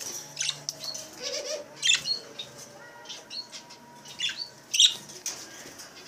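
Caged budgerigars giving short, scattered high chirps, with brief flutters of wings.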